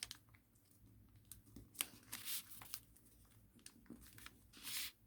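A sheet of thin origami paper being folded and creased by hand: soft, scattered rustles and crinkles, with a longer rustle near the end.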